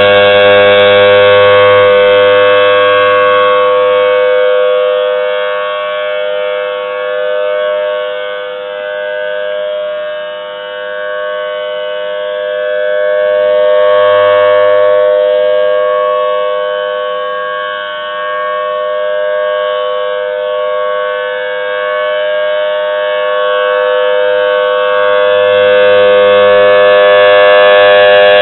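Federal Signal Thunderbolt 1000T rotating tornado siren sounding a steady single-pitched alert tone for its monthly test. Its loudness swells and fades as the rotating horn sweeps toward and away, peaking roughly every 14 seconds.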